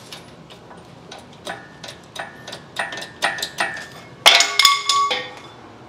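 Hydraulic shop engine hoist being pumped to lift an engine: a run of sharp metallic clicks, about three a second, with a faint ringing between them, then a loud metallic clank near the end that rings on for about a second.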